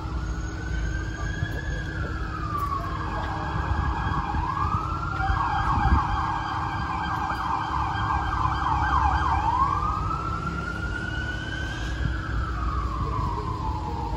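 Emergency vehicle siren sounding a slow rising-and-falling wail. About five seconds in it switches to a fast yelp for about four seconds, then goes back to the slow wail, over a low steady rumble of traffic and engines.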